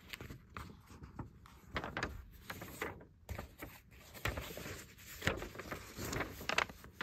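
A folded paper poster being unfolded by hand: paper rustling and crinkling in irregular bursts, with a couple of sharper crackles in the second half.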